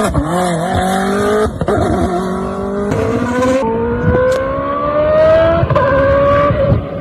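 Koenigsegg Jesko's twin-turbo V8 accelerating hard through the gears. The engine note climbs steadily in each gear and drops briefly at quick upshifts, three times about two seconds apart.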